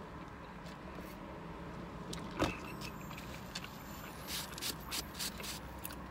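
Low, steady car-cabin hum with a single soft knock about two seconds in, then small scrapes and clicks of fingers picking at a flaky chocolate croissant in a cardboard box.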